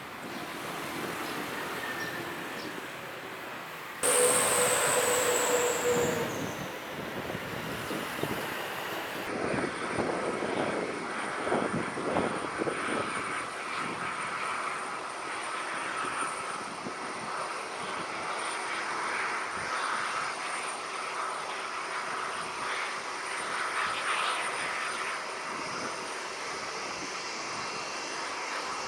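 Jet airliner engines heard close. A few seconds in, an abrupt cut brings a louder pass, with a high whine falling in pitch as the plane goes by. Then a steady jet noise with a thin high whine runs on.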